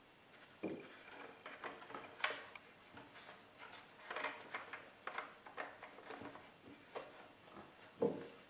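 Hands handling small parts and wires against a foam model-aircraft fuselage: irregular light ticks, taps and scrapes, with firmer knocks about two seconds in and near the end.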